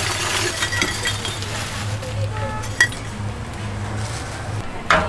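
Plastic bag rustling and lumps of charcoal clinking as they are tipped into the firebox of a clay-pot charcoal oven, with one sharp clink near the middle. A steady low hum runs underneath and stops just before the end.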